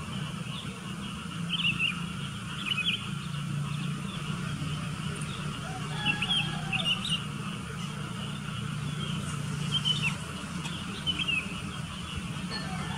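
Sooty-headed bulbuls giving short chirpy calls, a little cluster every few seconds, over a steady low hum.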